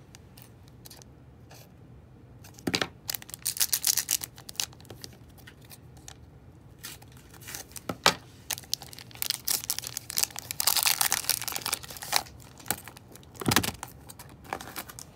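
A foil trading-card booster pack wrapper being torn open and crinkled by hand, in two long bursts of rustling, with a few sharp knocks in between.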